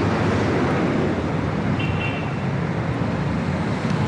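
Steady roadside traffic of motorcycles and jeepneys: engines running and passing with a continuous low rumble and road noise. A brief high-pitched beep sounds about two seconds in.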